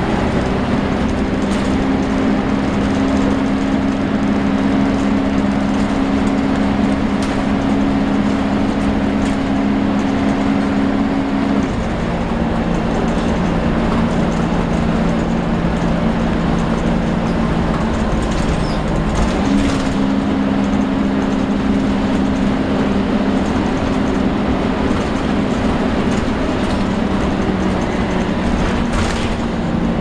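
Volvo B10BLE single-deck bus's rear-mounted six-cylinder diesel heard from inside the saloon while under way: a steady engine hum over road rumble. The engine note steps down about twelve seconds in, dips and then climbs back about twenty seconds in, and shifts again near the end, as the bus changes gear and speed.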